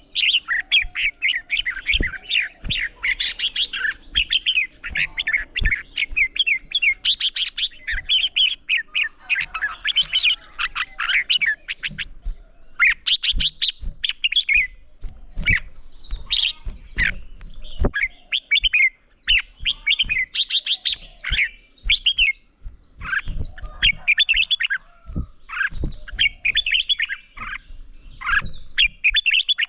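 Red-whiskered bulbuls singing in dense, rapid, warbled phrases with hardly a pause: the bold competitive "fighting" song that bird keepers train for. Frequent short knocks sound underneath the song.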